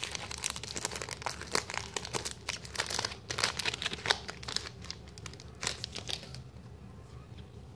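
A 2009 Donruss Elite football card pack wrapper crinkling and rustling in the hands as the pack is torn open. The crackling thins out after about six seconds.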